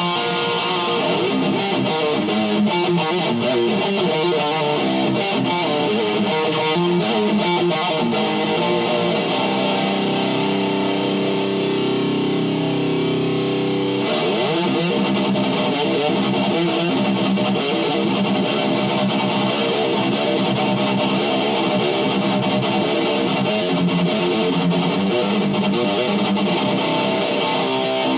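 Distorted electric guitar playing fast extreme-metal riffs. About ten seconds in it rings out held chords, and about fourteen seconds in it switches back to fast picking.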